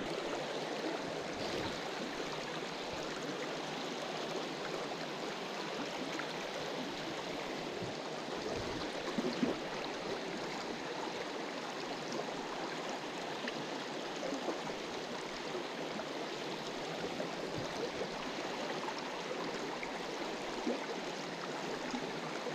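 Mountain stream water running steadily over rocks, an even rushing noise, with a couple of brief knocks about nine seconds in.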